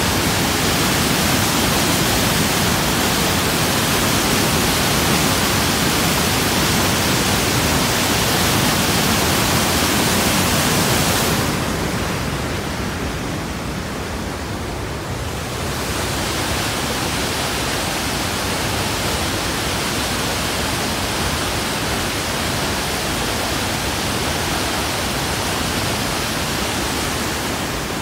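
Rushing whitewater of a rocky mountain river: a loud, steady hiss of tumbling water. About twelve seconds in it turns softer and duller for a few seconds, then comes back at nearly full strength.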